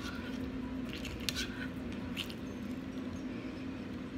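Close-miked chewing of soft, saucy brown stew chicken with the mouth closed: several short wet smacks and clicks. A steady low hum runs underneath.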